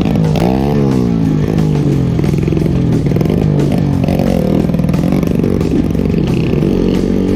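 Yamaha Vixion's single-cylinder four-stroke motorcycle engine under riding load, its pitch rising and falling again and again as the throttle is worked. The owner says the engine is leaking compression and so pulls without much power.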